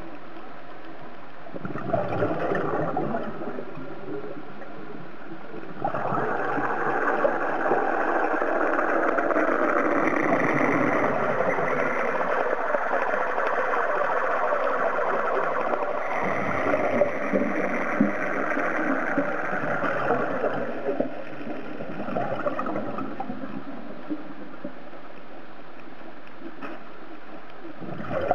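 Scuba diver's exhaled bubbles bubbling and crackling from the regulator, heard underwater through the camera housing, in bursts: a short one about two seconds in, a long spell from about six to twenty-one seconds, and another at the very end, over a steady underwater hiss.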